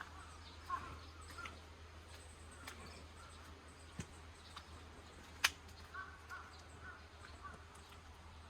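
Faint bird calls, with a few sharp clicks, the loudest about five and a half seconds in, over a low steady hum.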